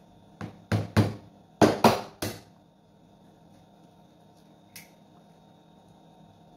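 A raw egg knocked six times against a hard edge to crack its shell, in two quick runs of three sharp knocks, followed by one faint click a couple of seconds later as the shell is pulled open.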